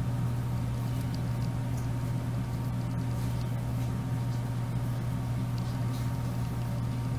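Steady low electrical or mechanical hum, with a few faint soft clicks of a metal crochet hook and yarn being handled.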